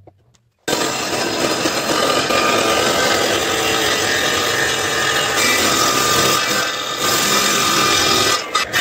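Homemade table saw's circular blade ripping through a wooden board: a loud, steady sawing noise that starts abruptly under a second in, with a brief dip near the end.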